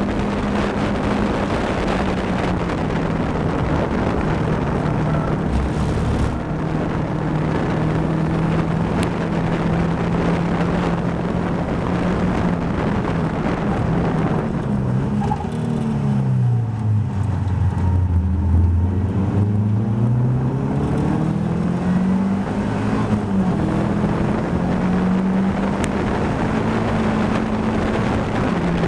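Caterham Seven's four-cylinder Ford Sigma engine heard from the open cockpit at race speed, with steady wind rush. The engine note holds steady at high revs, falls in pitch about halfway through as the car slows for a corner, then climbs again as it accelerates away.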